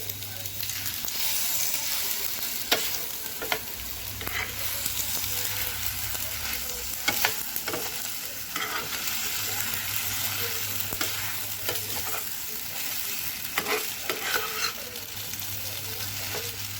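Spaghetti stir-frying in a pan: steady sizzling with the scrape and clack of a spatula tossing and mixing the noodles, sauce and pork.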